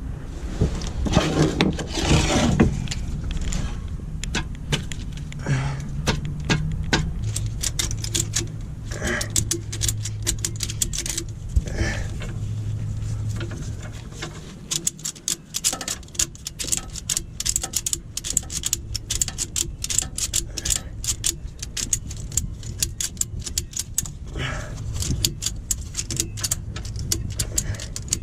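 Metal hand tools and bolts clinking and clicking against the truck's underside, with a dense run of sharp clicks in the second half, over a low steady hum.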